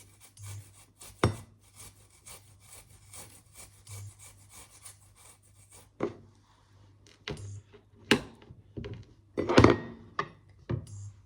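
Fresh ginger root being rubbed on a hand grater in quick rasping strokes, about four a second. In the second half the steady grating gives way to a handful of separate, sharper knocks and scrapes, the loudest about nine and a half seconds in.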